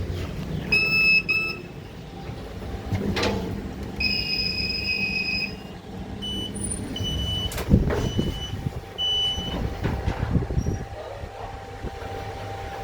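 A small passenger lift's electronic signal beeping, first in a few long high tones and then in a run of shorter beeps, with two sharp knocks and a low hum of the lift machinery underneath.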